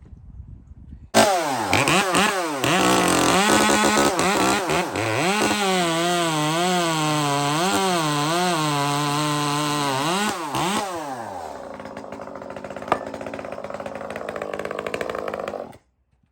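Echo 2511 top-handle chainsaw's small two-stroke engine running. It comes in suddenly about a second in and revs high, its pitch dipping and recovering over and over. Near the end it drops back toward idle and then cuts off abruptly.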